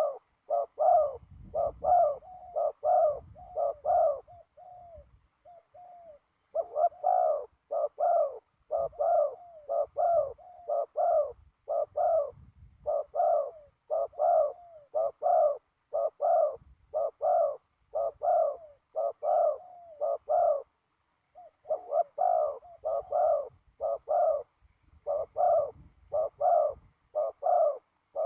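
A young male spotted dove cooing over and over, a string of short coos about two a second with a couple of brief pauses.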